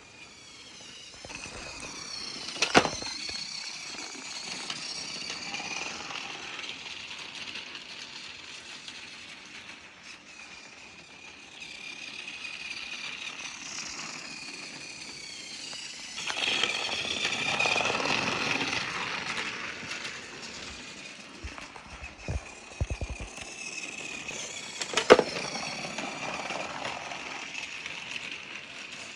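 Battery-powered Trackmaster toy engine running along plastic track, its small motor and gears whirring with a rattling clatter that grows louder for a few seconds midway. Two sharp clicks stand out, about three seconds in and near the end, with a short spell of crackling shortly before the second.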